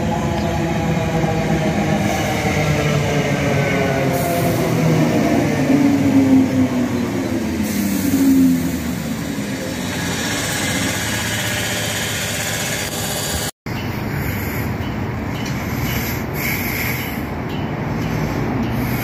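Class 318 electric multiple unit running into the platform, the whine of its traction motors falling steadily in pitch as it slows, over rumbling wheel and running noise. After a break about two thirds through, steady train noise goes on.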